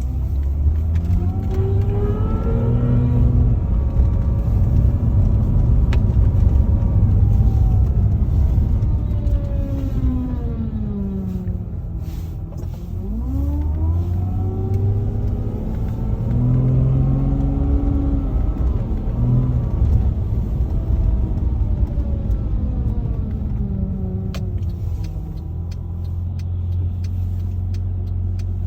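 A car driving, with its running noise and a grinder-like whine that rises in pitch as the car accelerates and falls as it slows, twice over.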